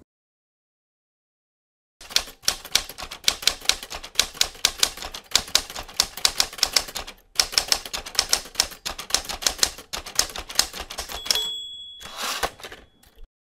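Typewriter sound effect: a fast run of key strikes with one short pause partway through, ending with a short ringing tone and a brief rattle.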